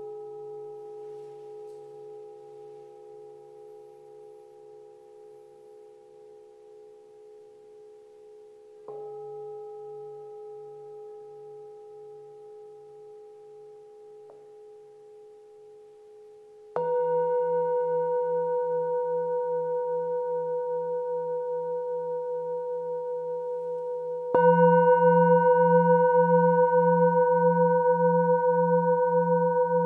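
Metal singing bowls struck with a mallet three times, about eight seconds apart. Each stroke rings on for seconds with a slow wavering pulse. The last two strokes are louder and on a different set of pitches from the first.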